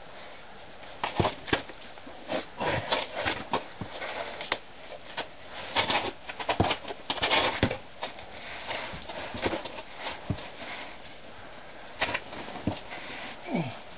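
Irregular scrapes, scuffs and knocks of boots and clothing against the rock walls of a narrow chimney as a climber wedges and stems his way up. They start about a second in, are busiest in the middle and thin out near the end.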